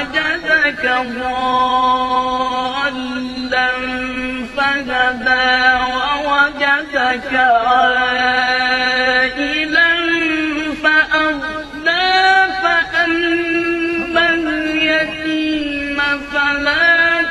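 A man's voice chanting a Quran recitation, drawing out long held notes with ornamented glides between them; the pitch steps up about halfway through.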